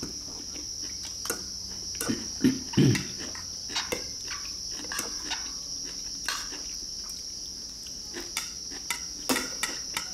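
Spoons and forks clicking and scraping on ceramic rice bowls, with chewing and mouth noises, the loudest about two and three seconds in. Under it all runs the steady high-pitched chirring of crickets.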